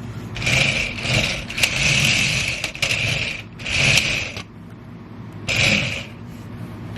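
Small electric gear motors of a remote-control toy tank whirring in five or six short bursts as it is driven in stops and starts, wheels spinning.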